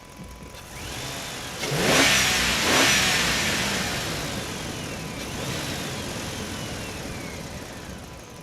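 A truck driving through a parking garage, its engine and tyres swelling to their loudest about two to three seconds in, then slowly fading away. High squeals glide up and down a few times.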